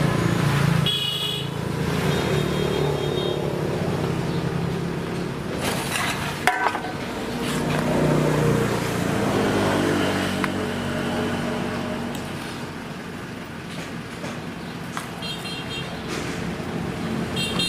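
Road traffic passing, with engines running steadily and short horn toots about a second in and twice near the end. There is one sharp knock a little past six seconds.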